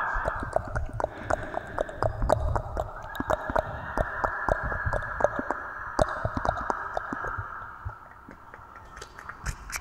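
Close-miked ASMR hand sounds: soft rubbing of hands and fingers with many quick, irregular clicks. The rubbing eases off a little near the end.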